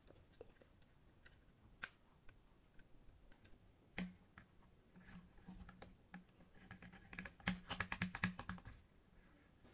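Plastic toy helicopter being handled: a sharp knock about four seconds in as it is set on the table, scattered small clicks, then a rapid run of plastic clicks near the end as its parts are worked.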